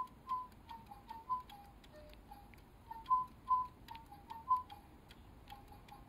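DigiBirds electronic toy birds singing: a string of short, clear electronic whistle notes, about two a second, stepping up and down in pitch, with faint clicks between them.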